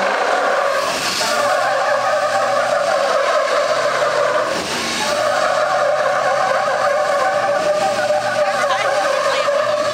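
Two diesel pickup trucks pulling against each other at full throttle, engines running hard under heavy load with tires spinning on the dirt. The engine sound dips briefly about halfway through, then picks up again.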